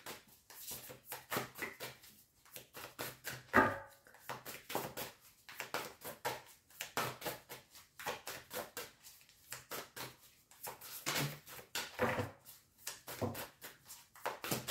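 A deck of tarot cards being shuffled by hand over and over, the cards slapping and sliding against each other in a steady run of short clicks. A brief voice-like sound stands out about three and a half seconds in.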